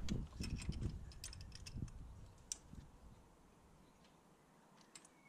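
Faint, irregular clicks and light metallic ticks of a spark plug tool as a spark plug is wound into its thread in the cylinder head, mostly in the first few seconds, with a few more near the end.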